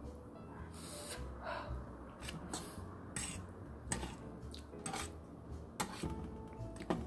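Eating utensils clicking and scraping against a bowl of instant noodles during eating, as scattered sharp clicks.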